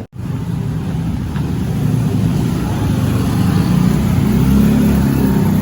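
A road vehicle's engine running on the move. It grows gradually louder and rises a little in pitch, as if accelerating.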